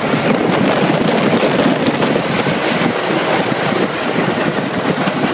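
Gemini roller coaster train running fast along its track over a hill and into a drop, a steady loud rattle and rumble mixed with wind buffeting the microphone.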